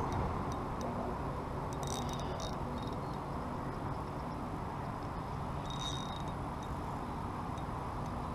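Spinning fishing reel being wound steadily as a fish on the line is brought in, a low continuous whirring with a faint hum and a few light ticks.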